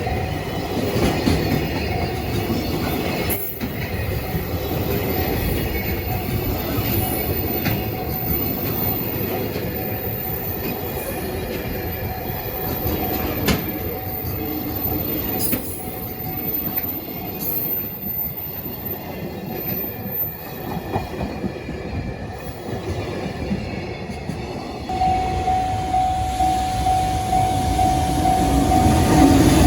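Freight train running past, its wheels rumbling on the rails with a few sharp clicks. About 25 s in, a steady high tone comes in and holds.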